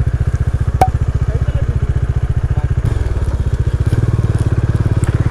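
Motorcycle engine running with a steady, even throb, with one sharp click about a second in; about three seconds in the engine note changes as the bike pulls away along the dirt track.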